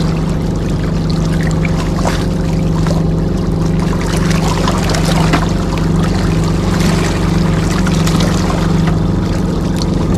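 An engine drones steadily at a constant pitch, with water noise and small knocks over it.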